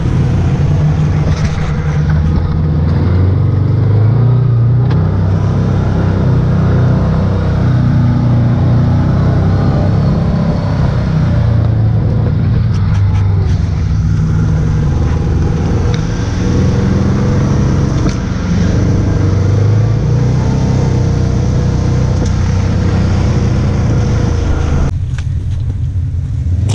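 Side-by-side UTV engine running from on board as it drives a muddy trail, its pitch rising and falling with the throttle. Near the end the sound changes abruptly to a duller engine sound.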